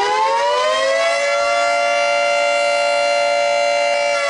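Outdoor tornado warning siren winding up to full pitch in the first second, then holding a steady wail, and just starting to wind down at the very end.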